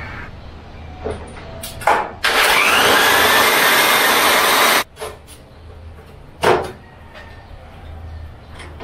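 Corded electric drill running for about two and a half seconds, its whine rising as it spins up, boring a rivet hole through the metal furring frame of a plywood cabinet door; it cuts off suddenly, and a single sharp click follows a couple of seconds later.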